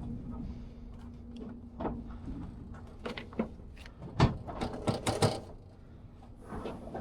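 A series of sharp knocks and clunks from tie-down gear being handled and checked in an enclosed car-hauler trailer, busiest a little past the middle, with a faint steady hum that fades out about two seconds in.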